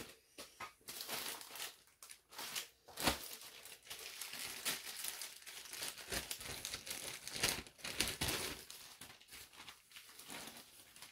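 Clear plastic zip-top bags crinkling and rustling as they are handled, in irregular rustles with a sharp click about three seconds in.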